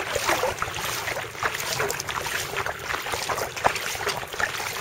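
Kayak paddle blades dipping and splashing in the water stroke after stroke, with water rushing past the racing kayak.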